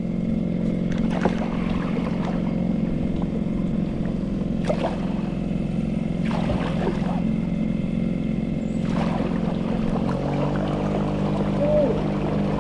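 Small boat's engine running steadily under way. Its note shifts slightly about ten seconds in.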